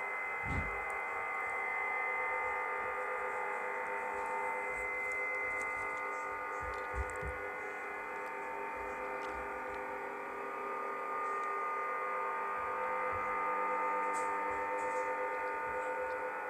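Steady droning hum made of several held tones layered together. Low thumps come about half a second in and again around seven seconds in.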